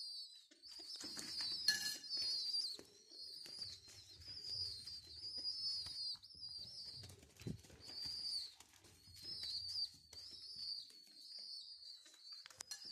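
Homing pigeon squabs squeaking over and over in short, high, wavering peeps, the begging calls of unweaned chicks wanting food, with soft rustling from their flapping wings.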